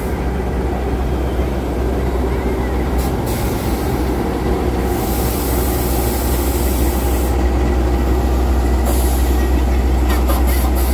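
KAI CC206 diesel-electric locomotive rolling slowly past at close range as its train pulls into a station, its diesel engine giving a deep steady rumble that grows gradually louder. A hiss of air about halfway through and a few short clicks near the end.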